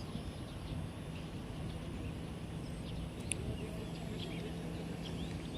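Small birds chirping, many short scattered calls over a steady low outdoor background hum.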